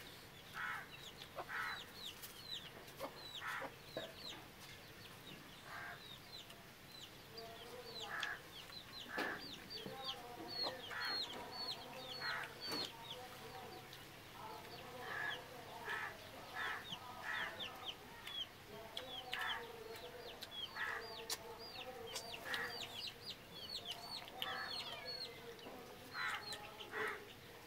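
Birds calling throughout: many quick, high chirps that slide downward, often in short runs, with lower clucking calls in between.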